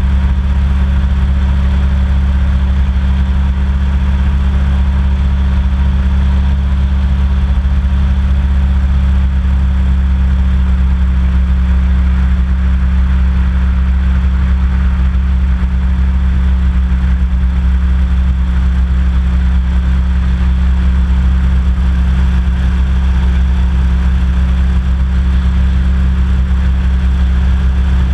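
Hovercraft engine and fan running steadily under way, a loud, unchanging low drone with an even rush of air above it.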